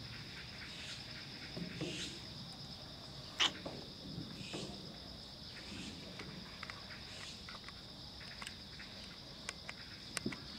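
Steady high-pitched chorus of insects trilling, with a few sharp clicks, the loudest about three and a half seconds in and a small cluster near the end.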